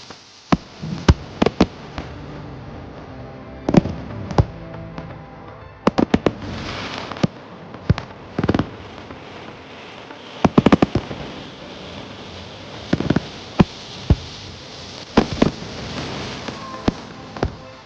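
Fireworks display: a dozen or more sharp aerial shell bangs at irregular intervals, some in rapid clusters, over a continuous background rumble and hiss.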